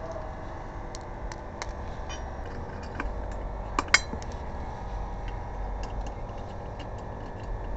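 Small metal clicks and clinks of lug nuts and tools being handled during a wheel change, with two sharper clinks about four seconds in, over a low steady rumble.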